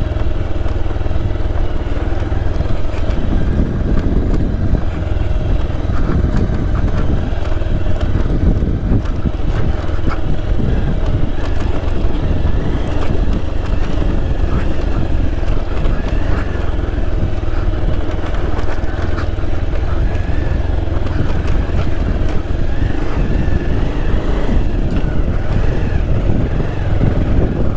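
Motorcycle engine running steadily at low speed over a rough stone and dirt track, with a heavy, constant wind rumble on the helmet-mounted microphone.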